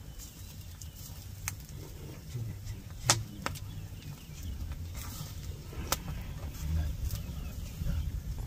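Open wood fire burning under skewered beef, with a few sharp pops from the burning wood, the loudest about three seconds in and another near six seconds, over a steady low rumble.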